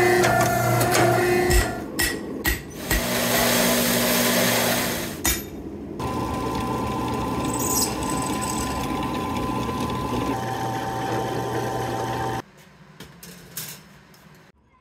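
Workshop machine sounds cut one after another. A machine runs with a steady whine, then come several knocks and a harsh noisy stretch. Then a drill press runs steadily for about six seconds, drilling handle-pin holes through a steel knife tang, and a few faint clinks follow near the end.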